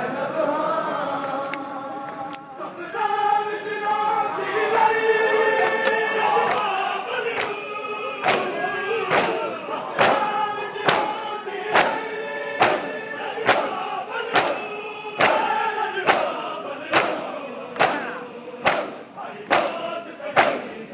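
A crowd of men chanting a Muharram mourning lament in unison. From about eight seconds in, sharp in-unison slaps join the chant, a little more than one a second: hands beating on bare chests (matam) in time with the lament.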